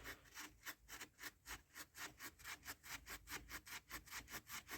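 Faint, rapid back-and-forth scrubbing on a Range Rover L322's transfer case casing, about four to five strokes a second, growing slightly faster and louder, as grime is rubbed off to uncover the stamped numbers.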